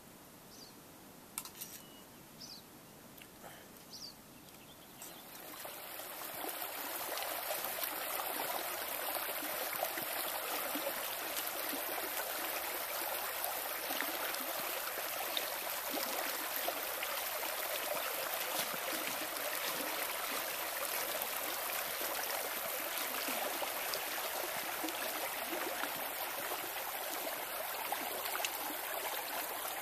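Snowmelt stream running, a steady rushing trickle that fades in about five seconds in. Before it, only a few faint clicks and short high chirps.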